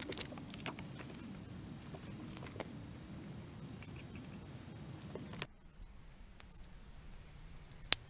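For about five seconds, rustling with scattered clicks and clinks as camp cookware and a water bottle are handled. Then it cuts suddenly to a quieter scene: a steady, pulsing high insect drone, with a few faint crackles from a small wood campfire.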